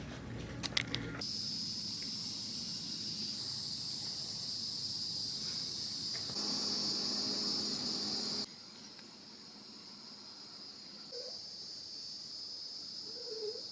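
Steady, high-pitched chorus of insects such as crickets or cicadas, starting about a second in after a few light clicks. It shifts in loudness a few times as the shots change.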